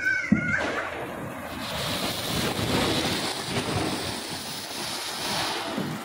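Ganga Jamuna firecracker fountain burning, a steady rushing hiss of spraying sparks, with one sharp crack shortly after it starts.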